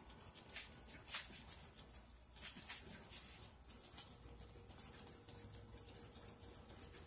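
A few short, soft puffs from a hand-pumped Nurture Soap glitter spray bottle spraying bio glitter, within the first three seconds; the puff about a second in is the loudest.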